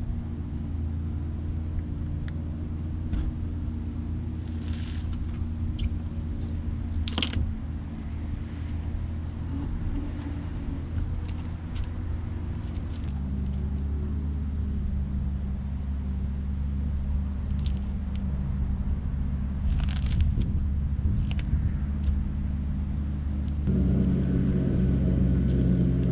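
Background music of low, sustained chords that change about halfway through and again near the end, with a few faint knocks.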